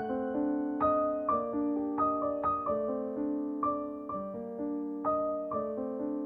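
Background music: a gentle piano or electric-piano melody, notes struck about twice a second and left to ring.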